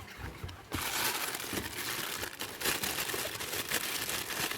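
Packaging being unwrapped by hand, a continuous crinkling and crackling that starts suddenly about a second in.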